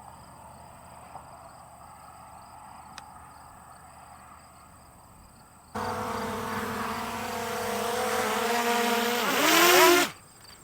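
Small quadcopter drone's motors and propellers whining as it comes in to land. The whine starts suddenly about halfway through and grows louder, then near the end the motors spin down with a falling pitch and stop abruptly as they are shut off. Crickets chirp faintly before it.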